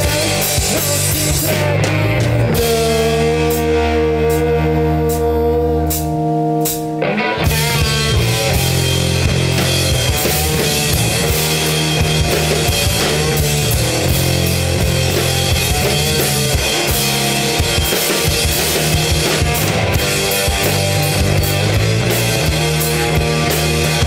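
Live rock band playing an instrumental passage on electric guitars, bass and drum kit. About two seconds in the band drops to held notes with only sparse hits, then the full band with drums comes crashing back in about seven seconds in and plays on.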